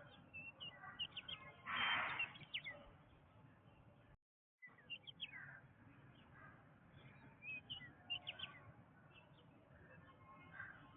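Several birds chirping and calling in a forest ambience: short, high chirps come throughout, with a louder, harsh noisy call about two seconds in. The sound cuts out completely for about half a second a little after four seconds.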